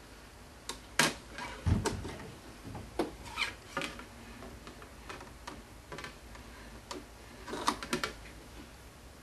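Irregular sharp clicks and light knocks of hard objects being handled, with a dull low thump about two seconds in.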